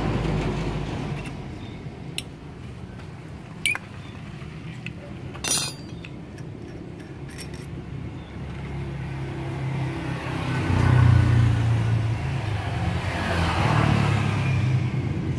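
A motor vehicle engine runs in the background and gets louder about ten seconds in. In the first half there are a few sharp metal clinks from the wrench and carburetor parts being handled.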